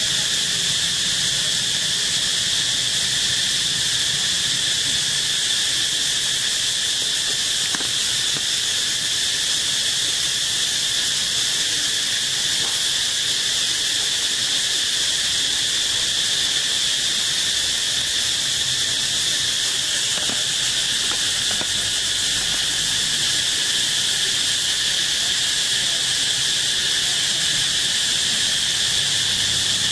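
Steady insect chorus: a continuous high-pitched drone that holds the same level throughout without breaks.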